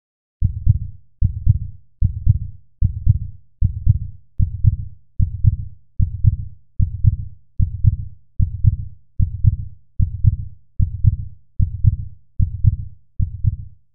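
Heartbeat sound effect: low double thumps (lub-dub) repeating steadily, a little more than one beat a second, starting about half a second in.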